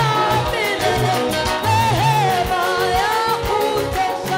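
Gospel worship song: a voice holding and bending long sung notes over a band with bass and a steady drum beat.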